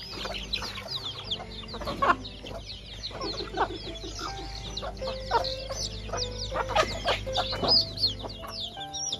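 A flock of free-range chickens at feeding time: many chicks peeping constantly in short, high, falling notes, while hens cluck now and then over the top.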